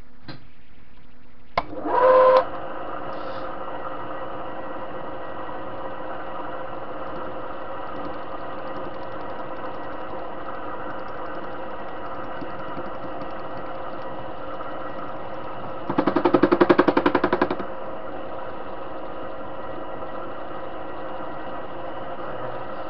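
TV-16 lathe starting up about two seconds in, then running steadily with a gear whine. About two-thirds of the way through comes a loud, rapid rattle lasting about a second and a half as the cutting tool bites into the washer.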